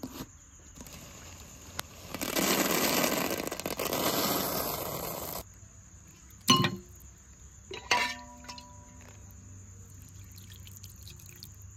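Paya soup poured from a ladle into a stainless steel bowl for about three seconds, then two metallic clinks of the ladle against steel, the second ringing briefly.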